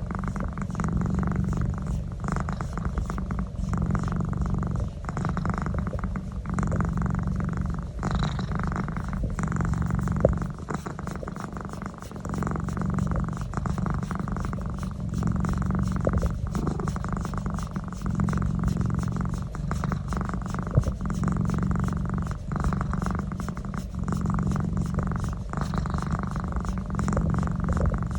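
Domestic cat purring loudly and steadily, swelling and easing with each breath about every second and a half, while having its neck massaged. A couple of brief clicks break in, one about a third of the way through and another near three quarters.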